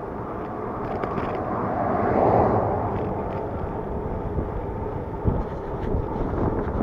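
Wind rushing over a handlebar-mounted action camera's microphone while riding a bicycle, with road noise beneath. The rush swells about two seconds in, and there is a single short knock a little past five seconds.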